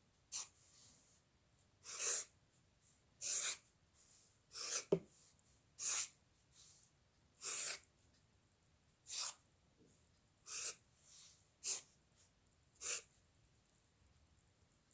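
About ten short scratchy strokes of a pen or pencil drawing on a surface, one every second or so, each a brief swish.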